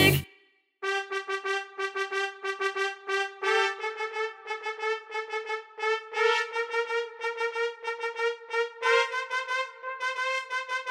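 A software trumpet in a Logic Pro X composition plays quick repeated staccato notes on one pitch. It begins about a second in and steps up in pitch twice, opening a dark, foreboding brass melody.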